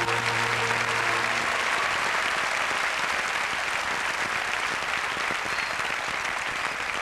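A large audience applauding steadily, with the last held chord of the song dying away in the first second and a half.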